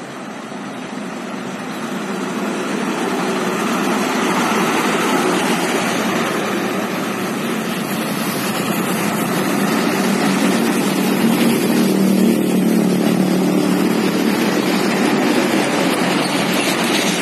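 Truck engine and road noise on the highway, growing louder over the first few seconds and then holding steady.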